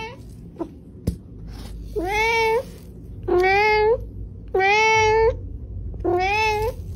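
Domestic cat meowing four times in a row, the meows about a second and a half apart, each one drawn out and rising then falling in pitch, after a light tap about a second in.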